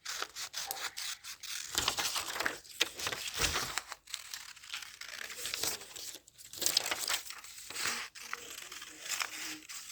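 Scissors cutting paper, with the sheet rustling and crinkling as it is handled, in irregular snips and rustles.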